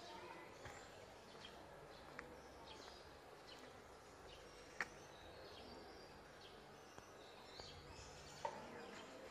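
Faint outdoor ambience with distant birds chirping now and then. A few soft clicks come through, the sharpest about halfway and near the end.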